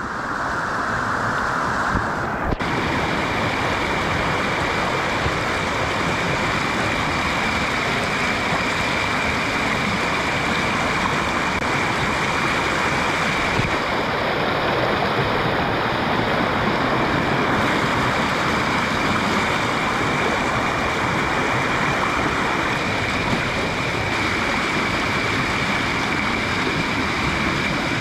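Fast-flowing, rain-swollen rainforest stream rushing over rocks: a steady, loud rush of water.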